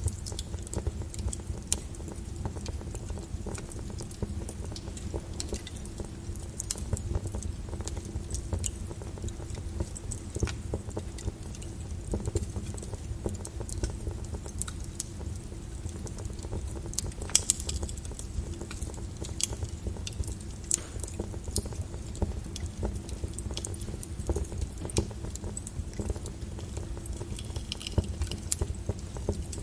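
Wood fire crackling with frequent sharp, irregular pops over a steady low rumble, mixed with rain falling on a window.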